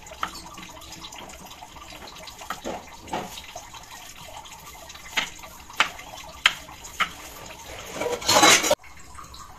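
Kitchen knife slicing an apple on a cutting board, the blade knocking sharply on the board several times, over a steady low hiss. Near the end a loud rushing noise lasts under a second and cuts off abruptly.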